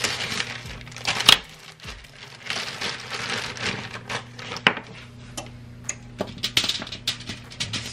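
Aluminium foil crinkling, with irregular small clicks and rustles as pieces of potato are set down on it. A steady low hum runs underneath.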